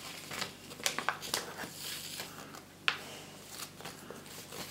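Paper rustling and crinkling as the pages of a LEGO instruction booklet are handled and turned, with a sharp tick about three seconds in.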